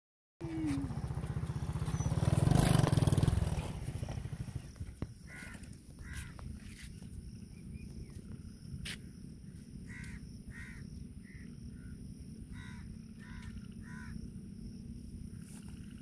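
Low rumbling noise on the microphone, loudest in the first few seconds, then about a dozen short calls from an animal in the paddy, one every second or so.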